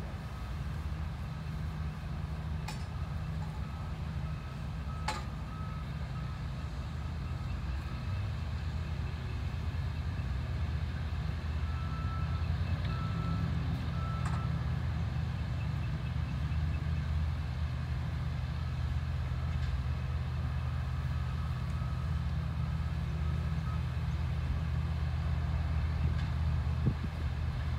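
A tractor engine idling with a steady low hum. A faint repeated high beep comes and goes in short runs, and a few sharp clicks sound over it.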